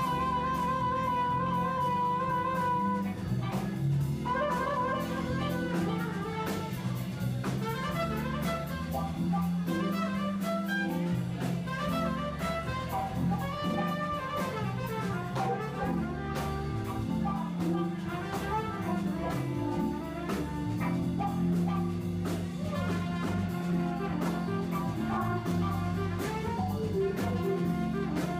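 A band playing jazz with horns and a drum kit, recorded through an iPhone's built-in microphone in mono.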